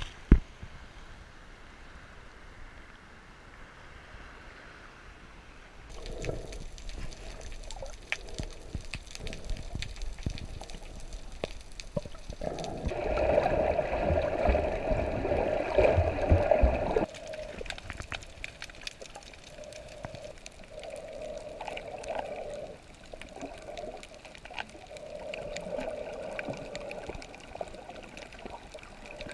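Water sloshing and gurgling against a waterproof action camera at the surface and underwater, muffled through the housing. A sharp knock comes right at the start, and the water is loudest in a stretch of churning around the middle.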